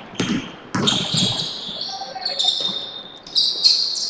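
Basketball dribbled on a hardwood gym floor, with a few quick bounces in the first second or so. Then come high squeaks of sneakers on the floor as players run the court.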